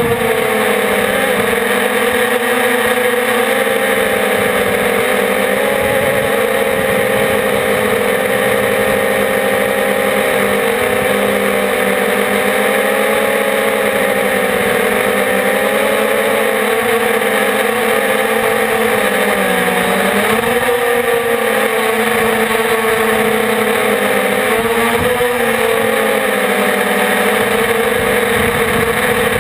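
450-size quadcopter's electric motors and propellers whining steadily in flight, heard close from on board; the pitch wavers up and down as the throttle changes, dipping around twenty seconds in and again near the end.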